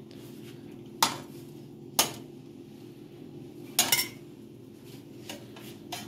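Metal cookware clanking: an aluminium pot lid and a metal spoon knocking against a cooking pot, with sharp clanks about one and two seconds in, a double clank near four seconds and lighter taps near the end, over a steady low hum.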